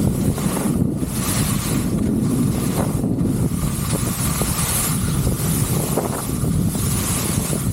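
Wind buffeting the microphone: a steady, loud rumbling roar that swells and dips in uneven gusts.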